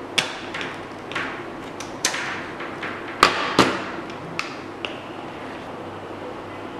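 A fetal doppler loudspeaker's steady hiss, broken by about ten sharp, irregular knocks over the first five seconds. The loudest knock comes about three seconds in, followed by another just after it.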